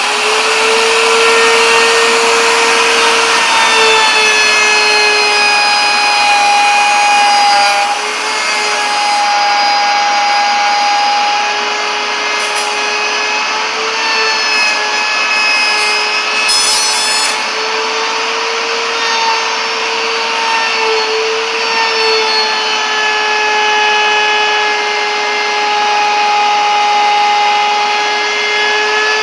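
Electric wood router running at full speed with a bearing-guided profile bit cutting wood, a steady high whine that dips slightly in pitch now and then as the bit takes load.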